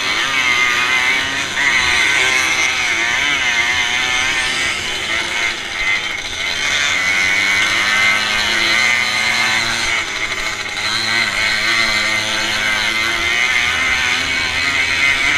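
Onboard sound of a classic motocross motorcycle's engine under race load, its pitch wavering up and down as the throttle is opened and closed through the corners, mixed with the engines of the bikes close ahead.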